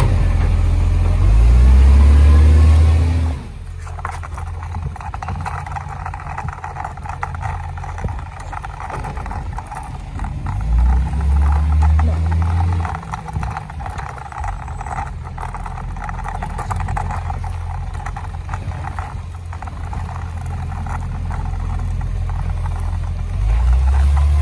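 Dennis side-loader garbage truck's diesel engine revving as it pulls away, then running more quietly down the street. It revs up again about halfway through and near the end.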